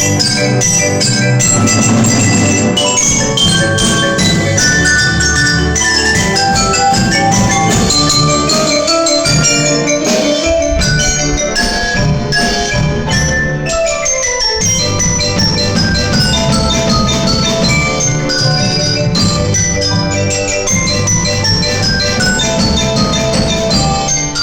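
Music of chiming, bell-like mallet-percussion notes in fast runs, with a long falling run of notes about halfway through.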